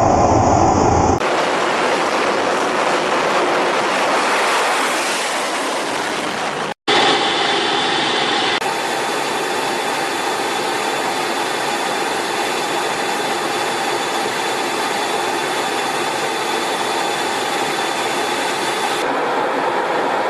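Jet aircraft engines running: a loud, steady rushing noise with a faint high whine, changing abruptly at edits between shots, with a momentary dropout about seven seconds in.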